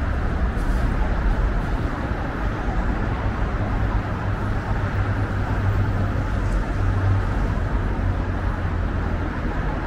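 Steady road traffic noise from a busy multi-lane city road, with the low hum of vehicle engines growing stronger for a few seconds in the middle.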